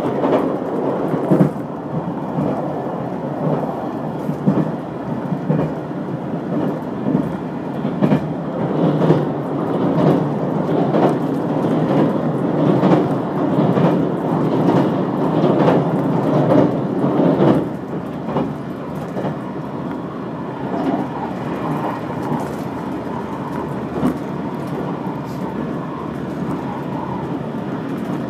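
Running noise of a limited express train heard from inside the passenger car: a steady rumble from wheels on rail, with irregular knocks and clacks. After about 17 seconds it eases a little and becomes steadier.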